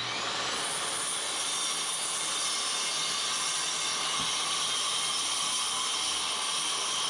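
Steady whir and hiss of an electric power tool's motor, rising in pitch as it spins up at the start and then running at constant speed.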